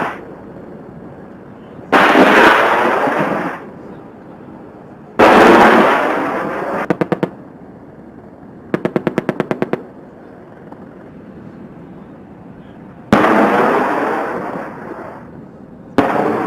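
Gunfire from an AH-64 Apache attack helicopter: four loud sudden blasts, each fading away over a second or two, and two short trains of rapid shots at about ten a second, the longer one about nine seconds in.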